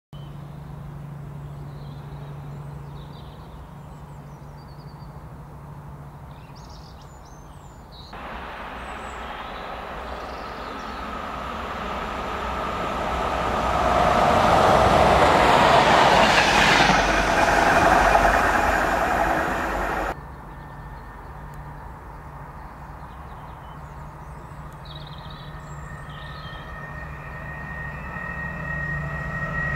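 Train approaching and passing along the line: a low steady hum gives way abruptly to a rumble and rush of wheels on rail that swells to a peak and then cuts off sharply. Near the end a second train draws near, with a whine that rises in level.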